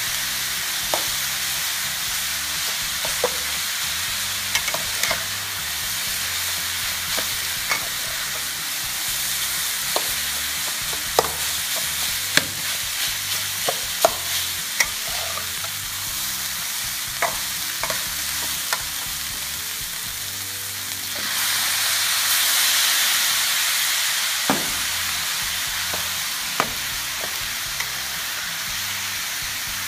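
Rice and sliced pork sausage sizzling as they are stir-fried in a stainless steel wok, with a steady hiss and the metal spatula scraping and clinking against the pan many times. The sizzle swells louder for a few seconds about two-thirds of the way through.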